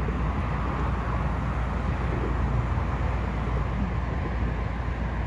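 Steady low rumble of open-air lakeshore ambience, an even noise with no distinct events.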